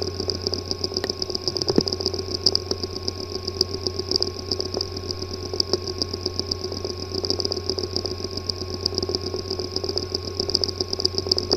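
Failing hard drive running with a steady hum and a high whine under rapid, uneven ticking. This is the sound of a drive whose disk assembly is physically damaged, a possible cause of its clicking and not being accessible.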